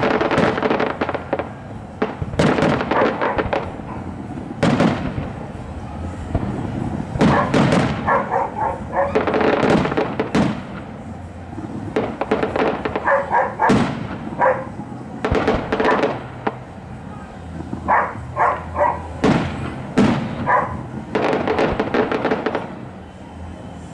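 Aerial fireworks shells bursting, a long irregular string of sharp bangs, some in quick clusters, with crackle between them.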